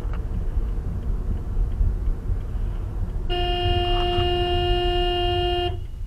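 Car horn sounding one long, steady blast of about two and a half seconds, starting a little past three seconds in and cutting off abruptly. Under it is the low rumble of the car on the road.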